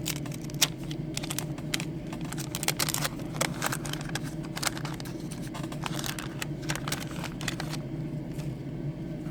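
Wax-paper card pack being torn open and unfolded by hand: a run of irregular crinkles and sharp clicks that stops about eight seconds in. A steady low hum lies underneath.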